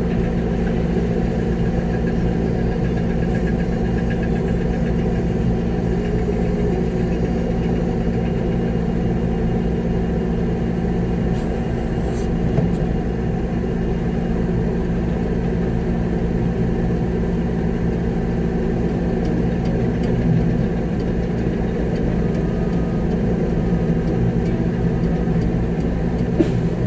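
Concrete mixer truck's diesel engine running steadily, heard from inside the cab.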